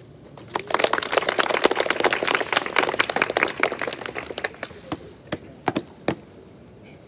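Hand clapping: a dense burst of applause lasting about four seconds that thins out into a few separate sharp knocks.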